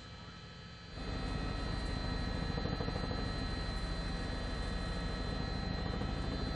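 News helicopter's engine and rotor noise picked up by the reporter's cabin microphone: a steady drone with a fast low pulsing. It is quieter at first and comes back to full level about a second in.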